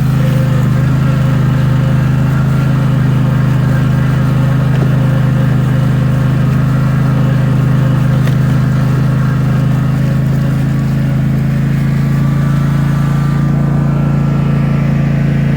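A vehicle engine running steadily at one constant speed.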